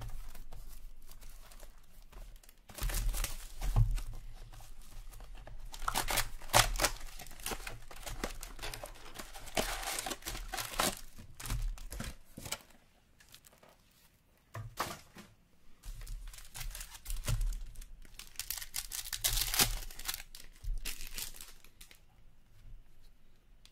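Plastic wrap and foil packs of a 2022-23 Upper Deck Ice hockey card box being torn open and crinkled, in several bursts of tearing and rustling with a short lull past the middle.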